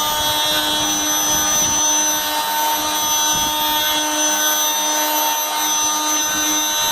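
JCB MC300 oscillating multi-tool running steadily at full speed with a sanding pad fitted, giving a high, even motor whine made of many steady tones.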